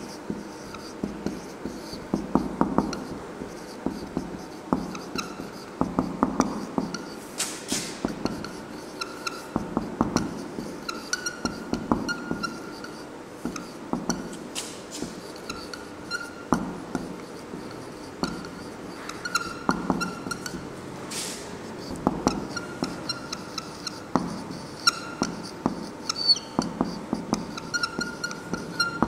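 Marker pen writing on a whiteboard: a long, irregular run of short strokes and taps, many with a thin squeak, as a sentence is written out letter by letter.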